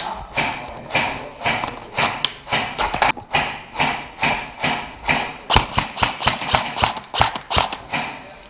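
Footsteps at a brisk, even pace, about two steps a second, picked up by a head-mounted camera.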